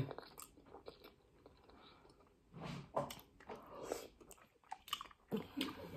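Close-up mouth sounds of biting into and chewing a piece of stewed cow skin: irregular wet chewing and smacking noises starting about two and a half seconds in.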